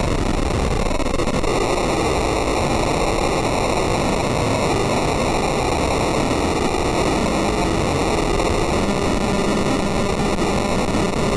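Loud, steady, harsh noise from a yelled sound clip heavily processed with video-editor audio effects, distorted until no voice can be made out.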